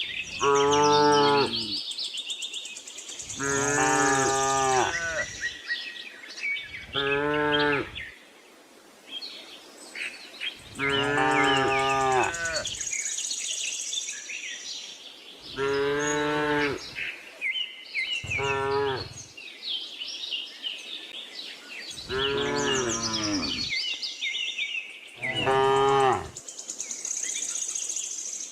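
Cattle mooing, with eight separate moos of one to two seconds each spread through the stretch, while birds chirp steadily in the background.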